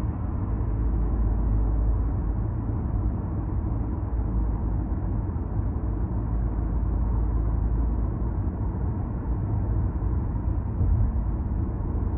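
Steady low rumble of tyre and road noise inside a moving car's cabin.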